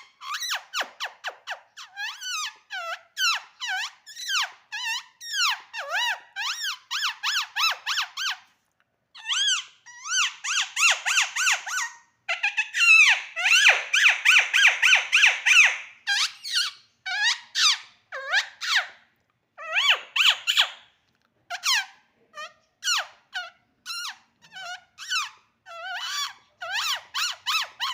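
Rose-ringed parakeet (Indian ringneck) calling: a rapid string of short, high squawks and screeches, with two louder, denser bouts about ten and fourteen seconds in.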